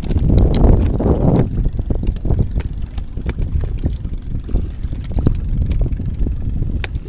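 Low, uneven rumble of wind buffeting the microphone, with a few light clicks and knocks from a plastic tackle box being handled.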